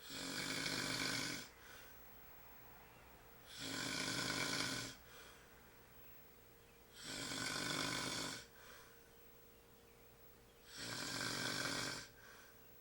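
A man snoring in his sleep: four loud snores about three and a half seconds apart, each followed by a brief, fainter sound.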